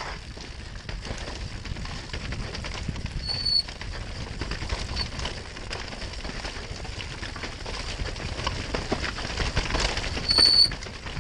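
Mountain bike descending a rough dirt trail at speed: a steady rattle of the bike and tyres over roots and stones, mixed with wind rush. Two short, high-pitched squeals are the loudest moments, one about three seconds in and one near the end.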